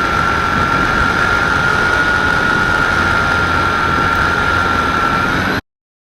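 Radio-controlled model airplane's motor and propeller running steadily, a high whine over a rushing noise, cutting off abruptly near the end.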